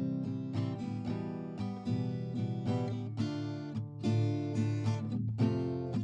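Background music: strummed acoustic guitar chords.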